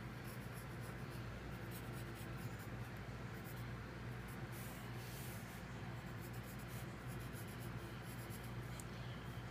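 Wooden graphite pencil scratching on drawing paper in a run of short, irregular sketching strokes, over a steady low hum.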